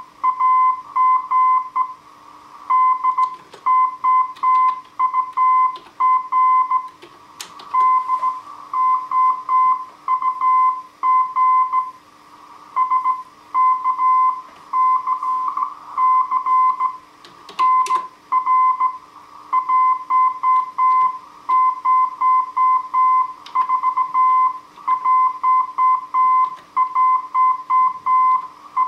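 Slow-speed Morse code (CW) from a Heathkit HW-101 transceiver: a single steady tone keyed on and off in dots and dashes. A faint steady hum runs underneath, and there are a couple of sharp clicks, about a third of the way in and again past the middle.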